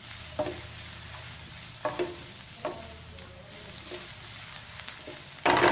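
Finely chopped onions sizzling in a nonstick frying pan as a spatula stirs them. A few short scrapes come through, and a louder scrape comes just before the end.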